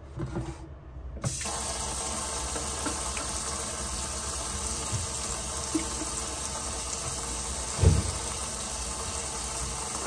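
Kitchen faucet turned on about a second in, its water running steadily into a stainless steel sink and splashing onto the pots and pans in it. One dull knock late on.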